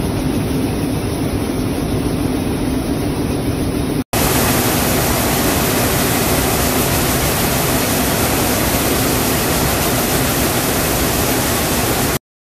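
Steady loud machinery noise of a factory workshop floor, with a low hum in the first few seconds. At a cut about four seconds in it becomes a brighter, hissier noise, which stops abruptly near the end.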